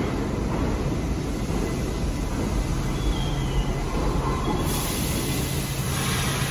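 R46 subway train standing at the platform: a steady low rumble and hum, with a hiss joining about two-thirds of the way through.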